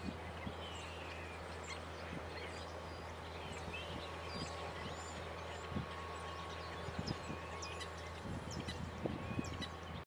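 Birds calling: many short, high chirps and brief sliding call notes scattered throughout, over a steady low hum.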